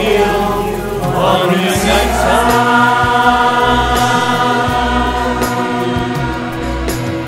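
Choir of men's and women's voices singing in harmony, moving through a phrase and then, about two and a half seconds in, settling onto one long held chord that eases off slightly near the end.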